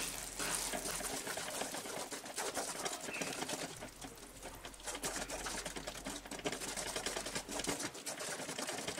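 Wooden spatula stirring and scraping a thick mix of mawa and melted jaggery around a nonstick pan, the mixture bubbling as it cooks, with a steady run of small irregular scrapes.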